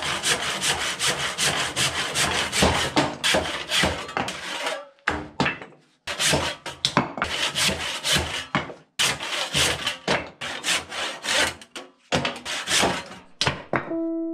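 Quick back-and-forth scraping strokes of a hand tool cutting into an oak rafter, a few strokes a second, with several short pauses.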